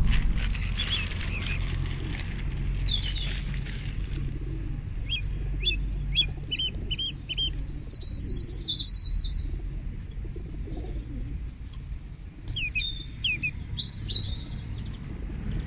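Feral rock pigeons flapping their wings as a crowded flock feeds on the ground, while small birds chirp in short high notes throughout, with a brief burst of chatter about eight seconds in.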